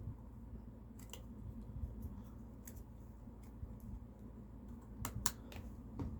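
Faint small clicks of plastic parts being handled inside an opened MacBook, with a sharper couple of clicks about five seconds in, as the battery connector is worked loose by its plastic pull tab.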